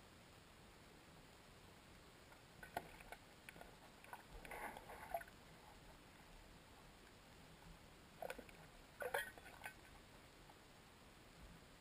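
Near silence: faint steady hiss with scattered faint clicks and knocks, a cluster a few seconds in and another past the middle.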